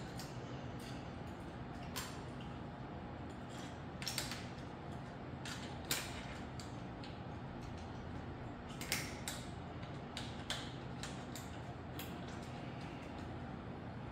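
Scattered clicks, taps and light knocks from a folding electric bike's parts and packaging being handled during assembly, the loudest about six seconds in and again about nine seconds in, over a steady low hum.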